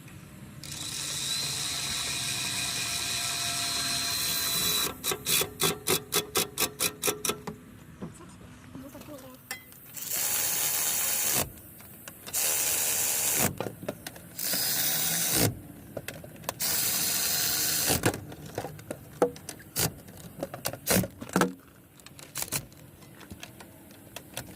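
Power tool working the alternator mounting bolts on a Detroit DD15 engine: a steady run of about four seconds with a whine, then a quick series of clicks, then four shorter bursts, with scattered knocks of tools and parts after them.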